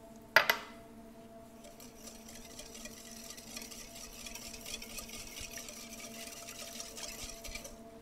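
A sharp knock about half a second in, then a wire whisk beating brown sugar into a bowl of melted butter and water: a steady swishing that stops just before the end.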